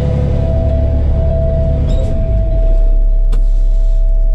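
Tow truck engine running with a heavy low rumble and a steady whine above it. About two and a half seconds in, the rumble deepens and gets a little louder, and a single sharp click follows shortly after.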